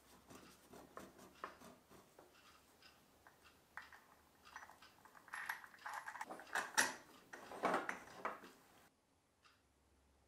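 Small brass lamp fittings clicking, tapping and scraping as they are handled and fitted together on the lamp wire. The clicks come thicker and louder in the second half and stop about nine seconds in.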